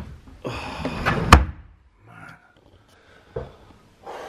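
A wooden drawer slides along its runners and slams shut about a second in. A softer knock follows near the end.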